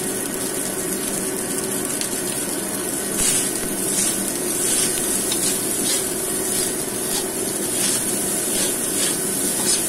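Fried rice sizzling steadily in a hot wok; from about three seconds in, a metal spatula scrapes and tosses the rice in quick repeated strokes against the pan.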